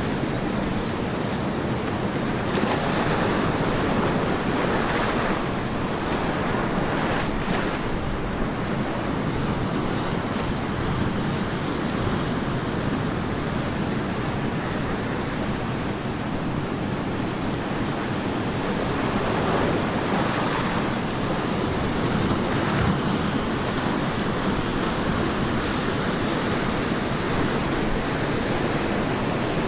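Ocean surf breaking and washing on a beach, a steady roar of waves that swells as larger waves break every several seconds, with wind buffeting the microphone.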